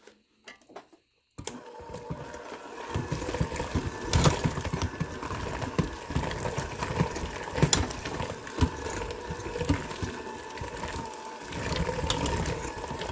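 Electric hand mixer starting up about a second and a half in and running steadily, its beaters churning through tender pressure-cooked beef in sauce in a stainless steel pot and shredding it, with occasional sharp knocks.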